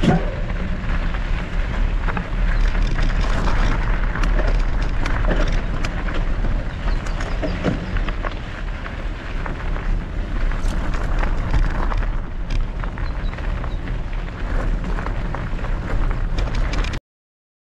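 Wind rushing over the microphone and mountain bike tyres rolling over a gravelly dirt trail, with many small clicks and rattles from the bike and the stones. It cuts off suddenly near the end.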